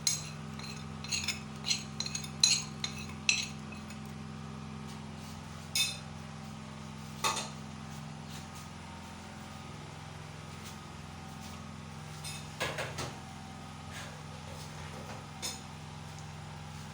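Metal spoon clinking against pots and dishes while seasonings are added: a quick run of sharp clinks in the first few seconds, then scattered single clinks and a short cluster later on, over a steady low hum.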